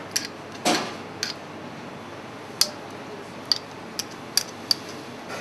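Light, irregular clicks and taps of kitchen utensils, about nine in all with one louder knock early on, over a steady faint hiss.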